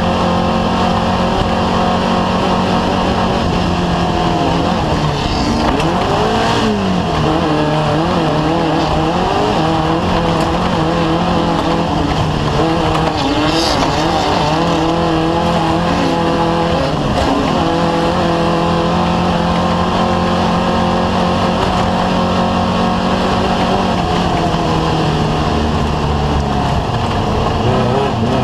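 Off-road race vehicle's engine running hard and continuously, its pitch rising and falling as the throttle comes on and off, over a steady rush of wind and tyre noise.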